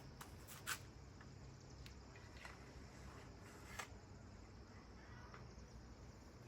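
Near silence with two faint clicks, one a little under a second in and one near four seconds in, from a crossbow bolt being set into the crossbow's track.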